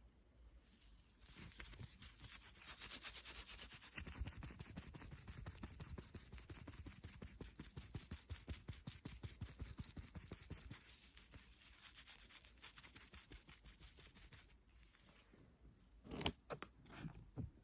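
Fast, even scratching strokes on an object's surface, close to the microphone, stopping about 14 seconds in. A few separate taps follow near the end.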